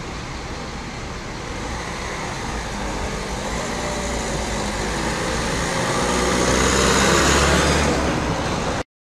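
A police car drives past close by, its engine and tyre noise growing louder to a peak a couple of seconds before the end, over a steady low hum of idling vehicles. The sound cuts off abruptly just before the end.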